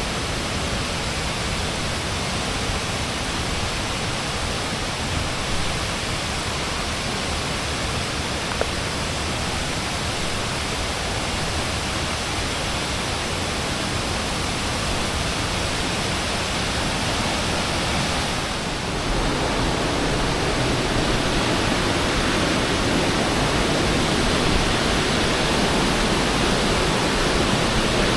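Waterfall rushing steadily, its water churning after heavy rain. The rush grows a little louder and fuller about two-thirds of the way through.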